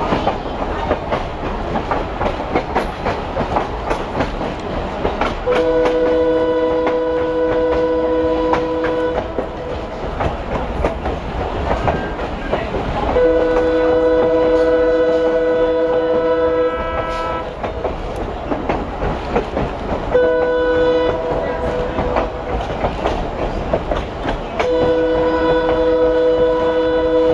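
Train horn sounding a chord of several tones in four blasts, long, long, short, long: the standard signal for a level crossing. Heard from aboard the moving train over a steady rumble and wheel clatter on the rails.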